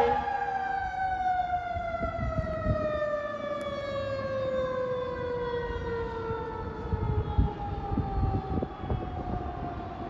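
Fire engine's mechanical siren winding down, one long tone falling slowly and steadily in pitch. Low rumble of traffic underneath, with a few dull thumps near the end.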